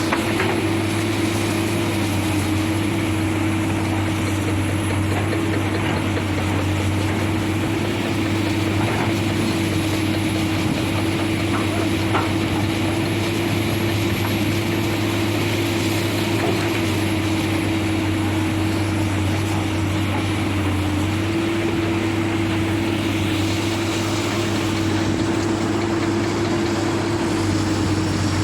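Heavy diesel engine of earthmoving equipment running steadily at constant speed, with a held, unchanging hum.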